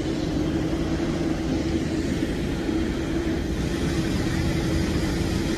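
Steady drone of engines on an airport apron, with a constant humming tone.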